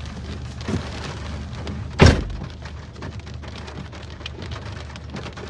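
Rain pattering on a vehicle, with many small drop impacts. About two seconds in there is one sharp, loud thud.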